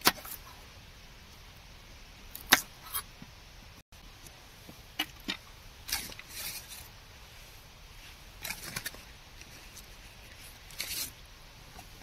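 Scattered sharp knocks and clinks of food preparation on a camp table: a knife cutting vegetables on a board and dishes being handled, with a low steady hiss between them.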